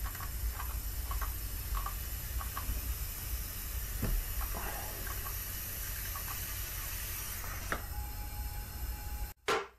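Compressed air from a leak-down tester steadily hissing and huffing out of a Subaru EJ251 flat-four's crankcase, with cylinder four at top dead center. The air is leaking past the piston, which the owner takes for a cracked piston.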